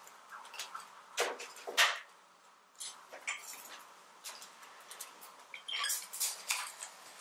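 Scattered clinks and knocks of metal tongs against clay pots and dishes. The two sharpest knocks come about a second and two seconds in.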